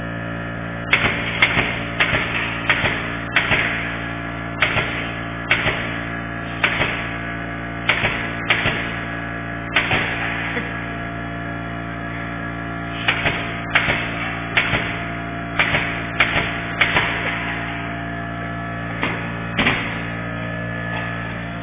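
Pneumatic nail gun firing about two dozen sharp shots in quick runs of one to two a second, with a pause in the middle, over a steady machine hum.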